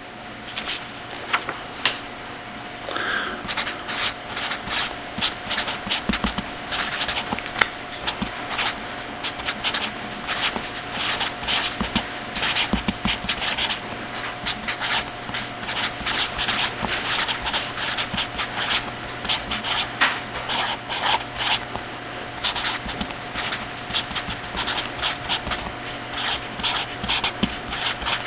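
Writing on a lecture board: a long, irregular run of quick scratching strokes and taps, over a steady hum.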